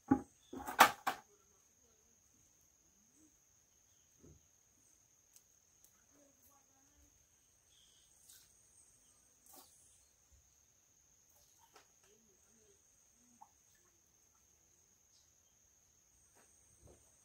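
A plastic bucket set down on the ground with a couple of sharp knocks near the start, over a steady high-pitched insect trill, like crickets, with a few faint small handling sounds.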